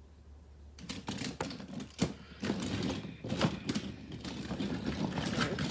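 Toy monster trucks clattering against each other as they are handled and shuffled in a pile: a quick irregular run of small plastic and metal clicks and knocks, starting about a second in.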